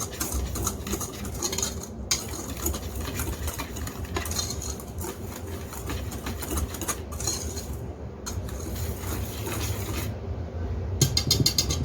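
A utensil stirring dry flour and salt in a mixing bowl, with steady scraping and small clicks against the bowl and a fast run of taps near the end.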